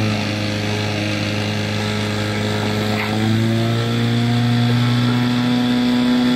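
Portable fire pump's engine running at full throttle, pumping water out through the attack hoses; its pitch steps up slightly about three seconds in.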